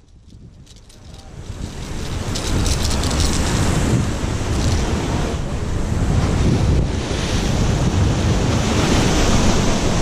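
Surf breaking and washing against the concrete blocks of a rock wall, with wind buffeting the microphone. The sound fades up over the first couple of seconds, then holds steady.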